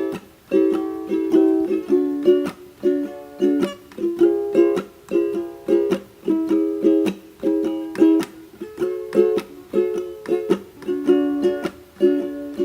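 Background music: a plucked string instrument strummed in a steady, even rhythm, with no singing.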